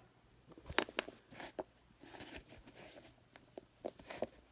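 Handling noises from the sneakers and their packaging: a few sharp taps and clicks, two of them about a second in and more near the end, with soft rustling between.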